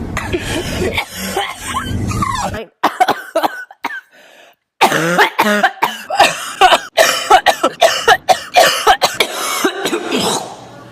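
A woman's coughing fit from bronchitis: repeated hacking coughs in bursts, with a short break about four seconds in, then a long run of rapid coughs that tails off near the end.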